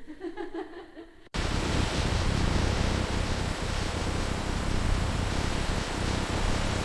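Loud, steady rushing noise typical of running factory machinery, starting abruptly about a second in after a brief faint pitched sound.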